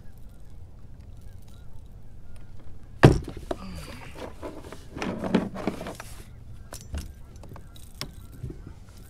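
A small blue catfish splashing and thrashing at the side of a kayak as it is brought up out of the water, with a sharp loud hit about three seconds in and rough splashing for a few seconds after, then a few light clicks.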